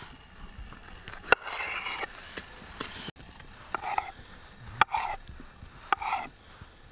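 Kitchen knife slicing tomatoes on a wet wooden cutting board: sharp taps of the blade meeting the board about once a second, with the soft sound of the blade cutting through the tomato around each tap.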